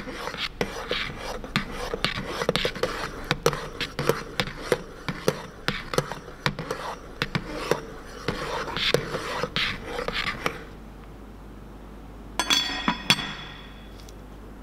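Stick blender churning thick hot-process liquid-soap paste in a ceramic slow-cooker crock, with uneven clicking and knocking as the blending head works against the bowl; it stops about ten and a half seconds in. About two seconds later a glass lid is set on the pot with a brief ringing clink.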